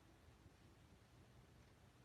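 Near silence: faint hiss with a low steady hum, the dead air of a weather radio recording between messages.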